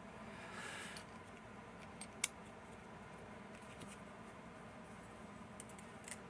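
Handling of small lock parts: a brief soft scrape, one sharp click about two seconds in, and a couple of faint clicks near the end.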